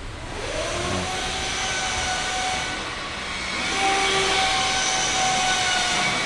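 A machine running steadily: a rushing noise with a whine that fades in and out, growing louder about four seconds in.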